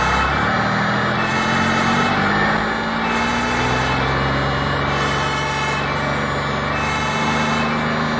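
Truck engine sound effect running steadily, its pitch rising slowly and stepping back down.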